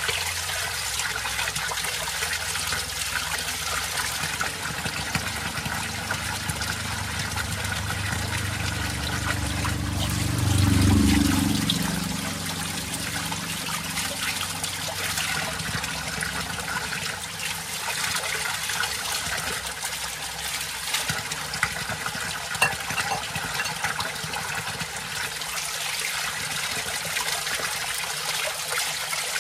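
Water pouring steadily from an outlet pipe and splashing onto stone, with fish and a plate being rinsed under the stream. The sound swells louder and deeper around ten to twelve seconds in.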